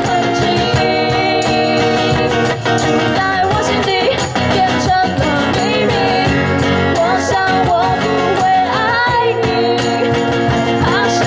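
Live acoustic pop song: women's voices singing in Mandarin over a strummed acoustic guitar and a cajon beat.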